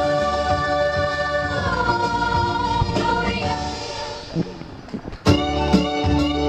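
Singers on microphones hold the closing notes of a carol, stepping down in pitch once and fading away. About five seconds in, the accompaniment strikes up again with guitar and a strong beat.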